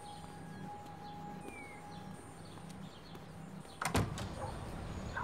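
A low hum pulsing on and off at an even pace, then about four seconds in a single sharp bang like a door shutting, after which there is a livelier outdoor background with small clicks.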